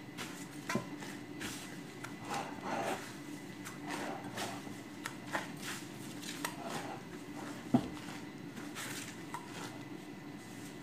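Gloved hands kneading bread dough in a glass bowl: irregular rustling of plastic gloves and soft squishing of the dough, with one sharp knock a little under eight seconds in.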